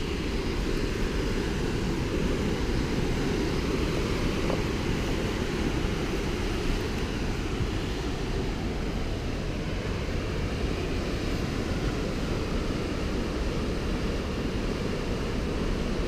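Steady low rushing noise with no distinct events, its level flat throughout.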